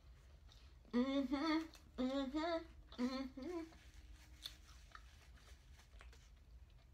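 A woman humming a short tune with her mouth closed, in three brief phrases about a second apart, then stopping; faint small mouth or food clicks follow.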